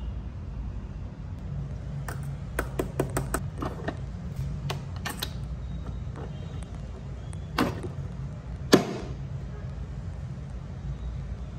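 Plastic clicks of a Nespresso capsule coffee machine being loaded: a run of light clicks as the capsule is handled and the lever lifted, then two louder clacks near the end as the lever is snapped shut and the brew button pressed.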